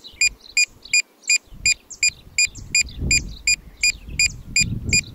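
DJI RC-N1 remote controller beeping rapidly and steadily, about four short high beeps a second, the sign that it is in linking (pairing) mode with the DJI Mini 3 Pro. A low rumble comes in under the beeps from about three seconds in.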